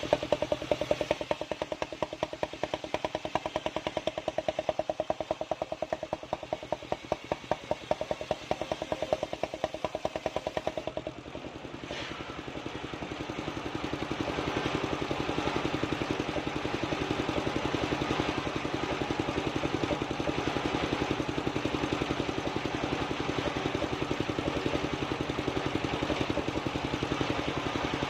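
Engine driving a portable circular sawmill, running with a fast, even chugging pulse. About eleven seconds in the sound dips briefly, then settles into a steadier, slightly louder running for the rest.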